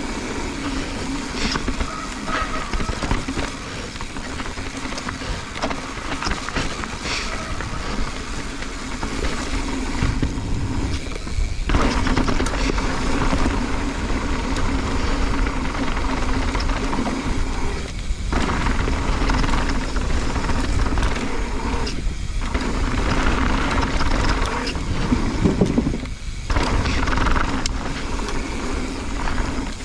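Mountain bike running fast down a dirt trail: wind buffeting the action camera's microphone over the rolling noise of knobby tyres on dirt, with scattered clicks and rattles from the bike. The tyre noise drops out briefly a few times.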